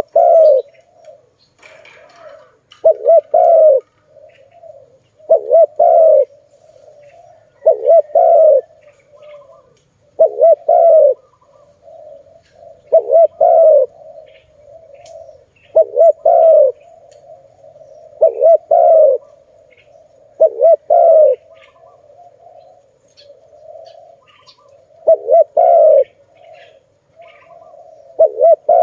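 Spotted dove cooing: a loud, low coo phrase repeated about every two and a half seconds, with softer cooing running between the phrases.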